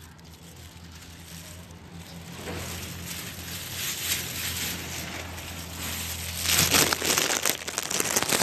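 Luffa vines and their leaves rustling and crackling. The sound grows louder from about two seconds in and is loudest near the end.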